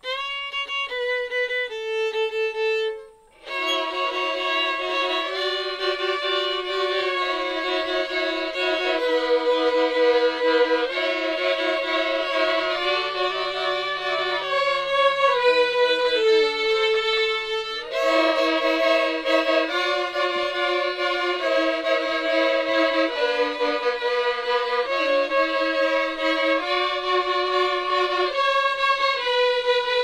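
A small group of children playing violins together, a slow tune in long held notes with several parts in harmony. There is a brief break about three seconds in.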